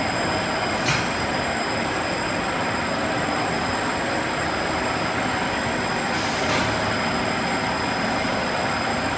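Biscuit forming line running: the conveyor belts and cutting rollers give a steady mechanical din with a thin high whine over it. There is a single knock about a second in and a brief louder rush about six seconds in.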